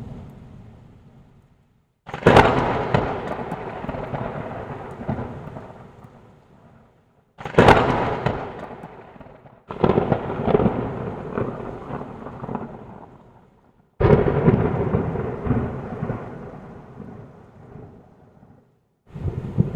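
Thunder: a run of about five thunderclaps, each starting with a sudden crack and dying away into a rumble over a few seconds. Between claps the sound drops briefly to dead silence.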